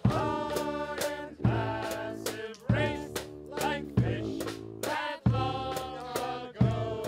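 A brass band playing: trumpets, saxophones, sousaphone and trombone holding notes over snare drum, cymbals and a bass drum. A heavy drum hit lands about every second and a quarter.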